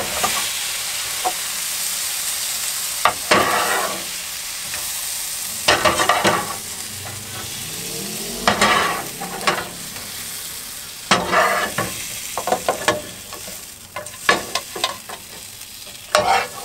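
Egg and tomato stir-fry sizzling in a frying pan on residual heat with the gas off, while a metal slotted spatula scrapes across the pan every second or two, scooping the food out. The sizzle dies down near the end.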